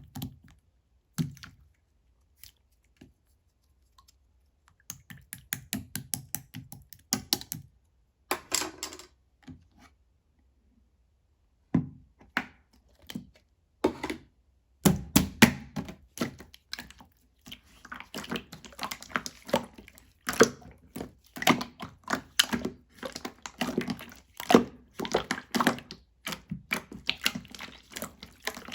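Very soft, runny slime being squeezed and pressed by hand, making quick wet clicks and pops in irregular clusters, with short pauses about three and ten seconds in.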